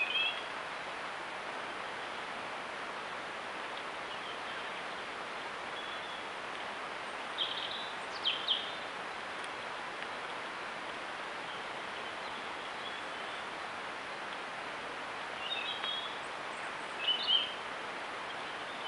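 Steady hiss picked up by a trail camera's microphone outdoors, with a small bird giving short high chirps in two brief clusters, about a third of the way in and again near the end.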